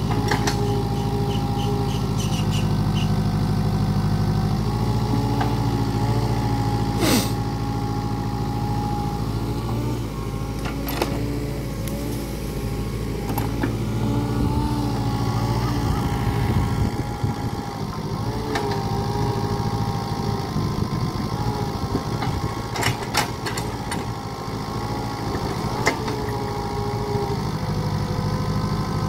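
Mini excavator's engine running steadily under load as the arm digs and lifts soil, with a whine that comes and goes as the arm moves. A few sharp metallic knocks come from the bucket and arm.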